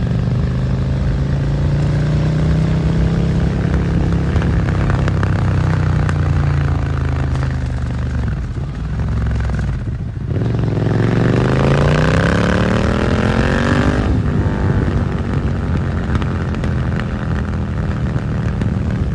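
2022 Suzuki SV650's V-twin engine through a Dominator GP exhaust, holding a steady note while cruising, then easing off for a couple of seconds. About ten seconds in it revs up hard, rising in pitch for some three seconds, then drops off sharply as the throttle closes and settles to a steadier, lower note.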